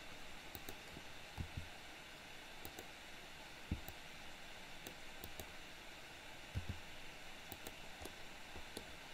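Steady microphone hiss with scattered faint clicks of a computer mouse and keyboard, and a few soft low thumps.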